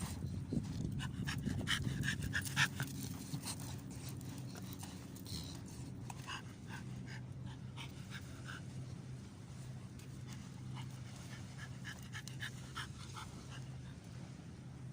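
American Bully dog panting in quick short breaths, most densely in the first few seconds, over a steady low hum.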